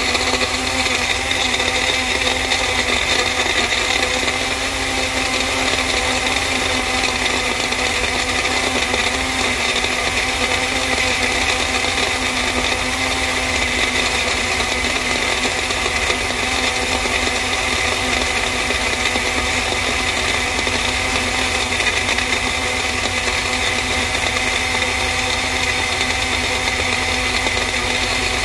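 Magic Bullet personal blender running steadily with its cup held pressed down on the motor base, blending fruit into a shake.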